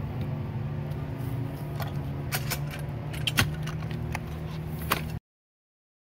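Steel-bladed hand digging tool knocking and scraping down in a fence-post hole, cutting roots: half a dozen sharp strikes, the loudest about three and a half seconds in, over the steady hum of an idling engine. Everything cuts off abruptly about five seconds in.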